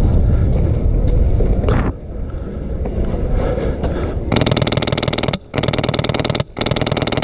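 Low rumbling noise, then three rapid full-auto bursts from an HPA airsoft light machine gun, a Polarstar F2-engined Mk48, with short pauses between them. The last burst is the longest.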